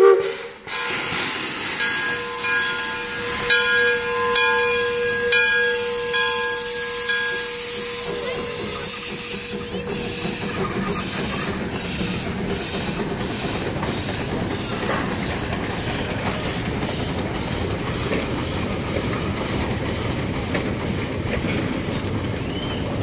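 Shay geared steam locomotive venting steam with a hiss, then sounding its steam whistle in a steady chord for about six seconds. About nine seconds in it starts to pull its train away, with an even, quick chuffing of its exhaust over the rumble of the cars.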